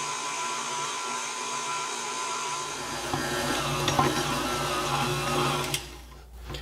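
Electric stand mixer's motor running steadily with a whine while its dough hook kneads bread dough in a steel bowl; it is switched off near the end.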